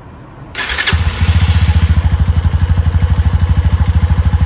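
Yamaha Serow 250's air-cooled single-cylinder engine being started: a brief whir of the starter, then it catches about a second in and settles into a steady, evenly pulsing idle. It is being warmed up on fresh oil and a new oil filter.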